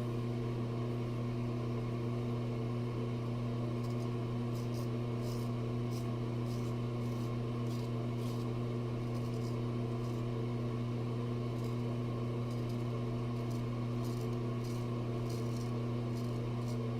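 Straight razor scraping lathered stubble in short, irregular strokes, faint and crisp, starting a few seconds in. A steady low electrical hum runs under it and is the loudest sound throughout.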